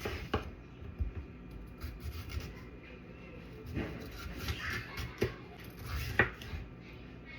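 Kitchen prep handling sounds: a few sharp knocks and clicks of utensils and ingredients being set down and moved, with rustling and scraping around the middle. The loudest knock comes about six seconds in.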